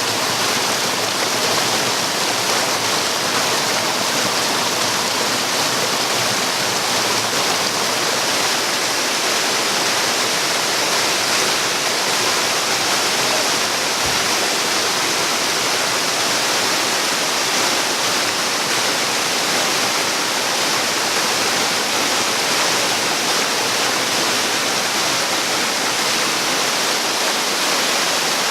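Waterfall: a steady, loud rush of falling water that doesn't change.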